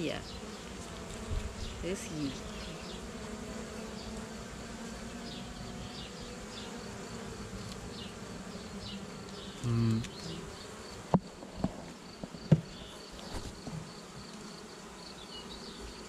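Honey bees buzzing steadily around an open hive frame. A short dull thump is followed by a few sharp knocks past the middle, the loudest sounds in the stretch.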